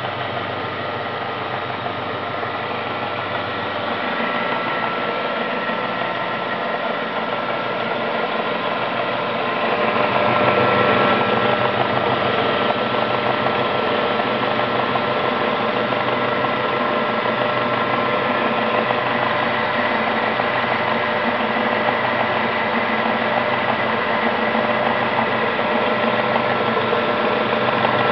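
Homemade wood lathe running steadily under its 1100-watt electric motor, a continuous mechanical whir with a steady hum. It grows louder about four seconds in and again about ten seconds in.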